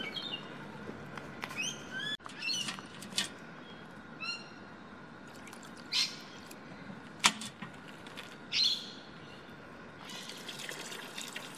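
Birds chirping and calling in short repeated phrases, with one sharp click about seven seconds in. Near the end, thinned hardener splashes from a plastic jug into a bucket of red epoxy paint.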